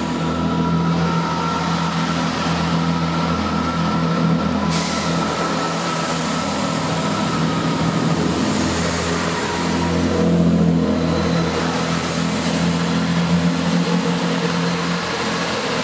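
Class 165 diesel multiple unit's engines running under power as the train pulls away from the platform. A steady diesel drone with a faint higher whine.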